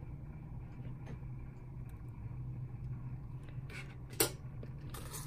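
A steady low hum in the room, with a light click about four seconds in as a brush is set down on the work table.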